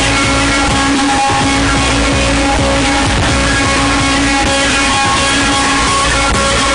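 Very loud guitar-driven music blasting from a car's trunk sound system, dense and unchanging in loudness throughout.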